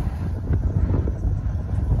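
Wind buffeting the microphone in uneven gusts, over the sound of cars driving through the crossing.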